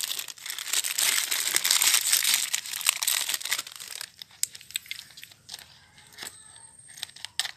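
Crinkling plastic for about four seconds, then quieter scattered clicks and knocks of hard plastic toy eggs being fitted into a plastic toy dragon.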